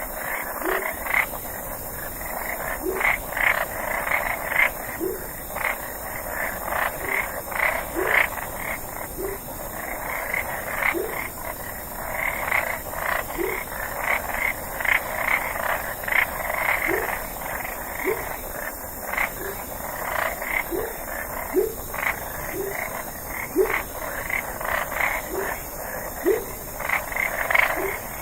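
Frogs croaking at night: short, low, upward-sliding croaks repeat about once a second over a dense, steady calling chorus.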